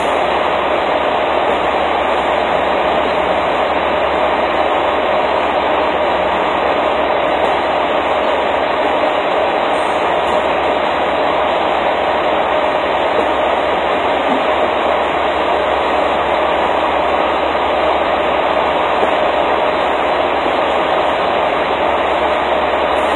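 Steady machinery noise: an even, loud drone and hiss that holds the same level throughout.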